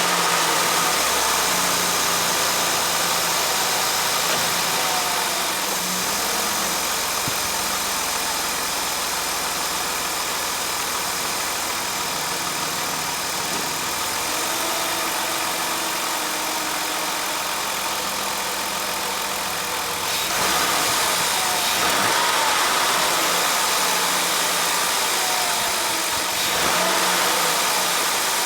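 2002 Ford Taurus Duratec V6 engine idling steadily just after starting, running on a newly replaced PCV valve and PCV-to-intake-manifold hose. The level rises slightly about twenty seconds in.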